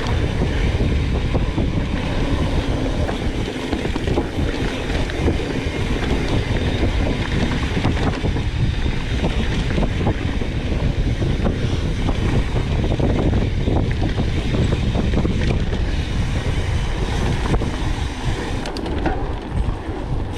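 Mountain bike running along a dirt trail: a steady rumble of wind on the microphone and tyres on the ground, with frequent small knocks and rattles from the bike over bumps.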